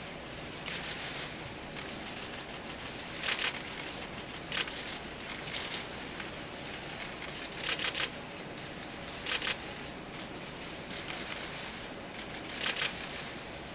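Quiet room tone with a steady hiss, broken by several short, scattered rustles and clicks.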